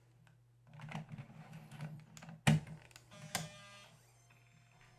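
A 3.5-inch floppy disk sliding into the slot of a Panasonic SuperDisk 240 drive: scraping as it goes in, a sharp clack about two and a half seconds in as it seats, and a second click a moment later.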